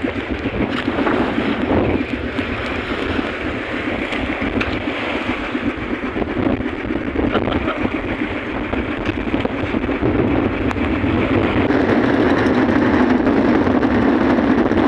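Strong wind rushing over the microphone and rough, choppy sea washing around a small outrigger fishing boat: a steady, dense rush that grows a little louder near the end.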